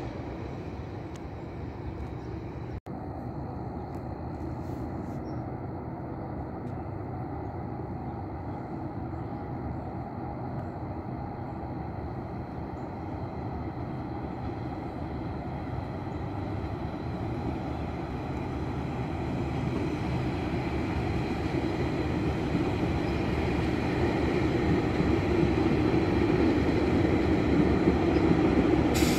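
GO Transit MP40 diesel locomotive pushing a six-car bilevel passenger train toward the listener, the engine and rolling wheels a steady rumble that grows louder through the second half as the train approaches.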